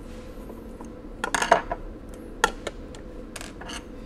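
A steel hand tool clinks and scrapes against the metal handle fitting on the side of a 1917 Monroe Model F calculator's steel case as the handle is worked loose. There is a quick cluster of clinks about a second and a half in, then a few single clinks.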